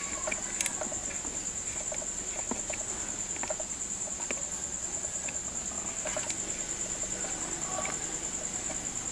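Insects chirping: a steady, high-pitched pulsing chirp. Faint small clicks and taps sound over it as a small six-pin toggle switch is pressed into a motorcycle's plastic panel.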